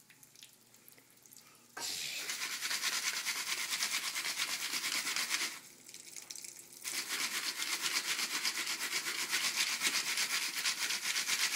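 Jiffy Pop foil pan being shaken back and forth over an electric stove coil: a fast scraping rattle of the pan on the burner and the kernels inside. It comes in two spells of a few seconds, with a pause of about a second and a half between them.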